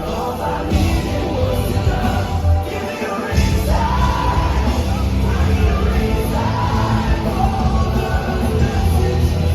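Loud live rock band playing, with yelled, sung vocals over a dense, heavy mix; the bass briefly drops out about three seconds in.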